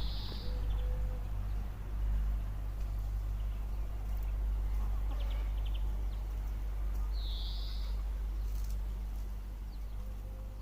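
Two short bird calls, high-pitched and about seven seconds apart, over a steady low rumble, with a few faint ticks in between.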